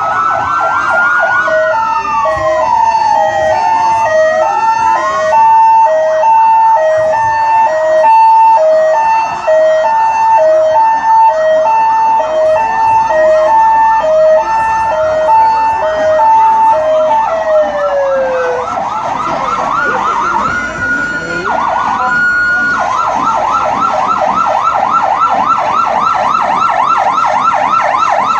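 Several emergency-vehicle sirens sounding at once and overlapping. Slow rising and falling wails run alongside a two-tone hi-lo siren, which sounds from about two seconds in until a little past the middle. A fast yelp takes over for the last five seconds.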